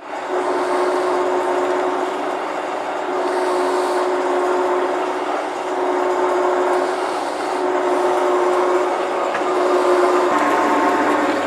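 TV-4 "Shkolnik" school lathe running, its spindle turning the workpiece while a twist drill in the tailstock chuck is hand-fed into it. The sound is a steady mechanical whir with a constant hum note.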